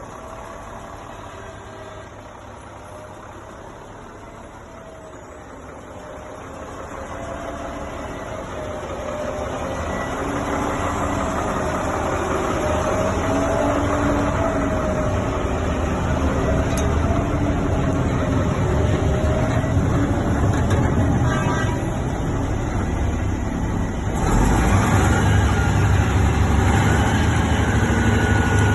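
Diesel engine of a 1996 Kenworth T450 concrete mixer truck running, growing louder over the first ten seconds or so, with a wavering tone over it. Near the end the low engine rumble suddenly steps up louder.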